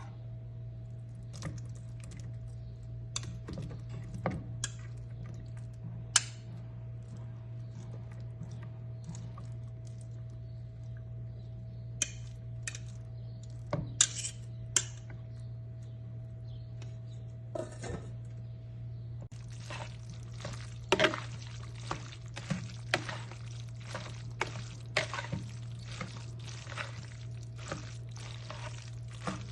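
Kitchen work with cookware and utensils: scattered clinks and knocks over a steady low hum, then from about two-thirds of the way in a continuous hiss with rapid clinks, like liquid going into a pan while being stirred.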